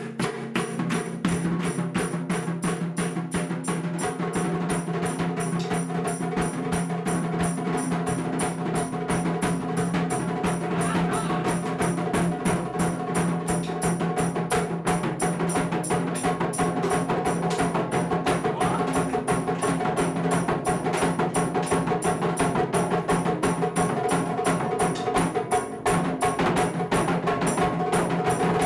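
Japanese taiko drum ensemble playing a fast, dense rhythm of sharp strikes, over steady held low tones.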